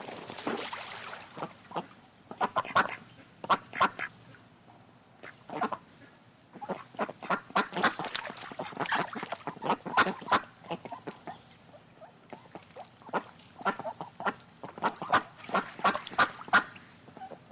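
Geese honking in quick, closely packed runs of short calls, with two brief lulls about five and twelve seconds in.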